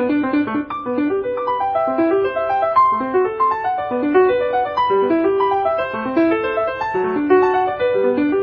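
Background instrumental music on piano: a flowing melody of quick single notes over a repeating accompaniment.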